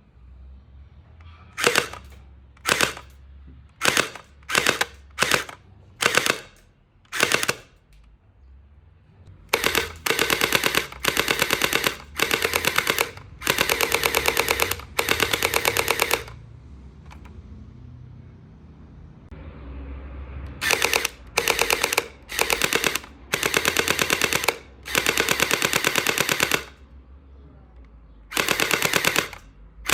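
Toy electric gel ball blaster firing in bursts: about eight short bursts in the first seven seconds, then longer full-auto strings of rapid shots lasting one to two seconds each.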